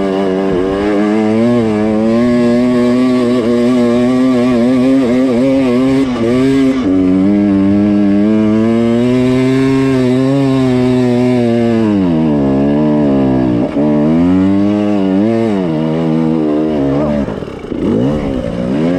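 KTM 300 TPI two-stroke dirt bike engine pulling hard up a steep hill climb, held at high revs with a wavering pitch. The revs dip briefly about twelve seconds in, then drop and blip unevenly near the end as the bike crests the top.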